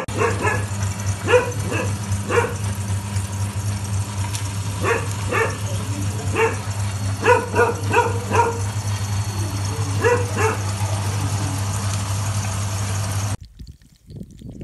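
Electric meat grinder's motor running with a steady low hum as fish is minced, cutting off suddenly near the end. Over it come repeated short, pitched squeals in small clusters.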